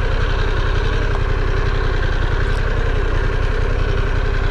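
Harley-Davidson Pan America's liquid-cooled Revolution Max 1250 V-twin idling steadily, a low even rumble of rapid firing pulses.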